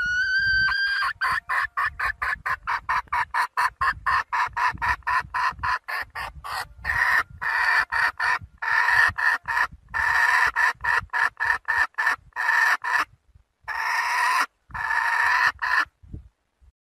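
Red junglefowl hen calling for a cock: one rising note, then a long fast run of clucks, about five a second, which turn into longer, louder clucks in the second half and stop near the end.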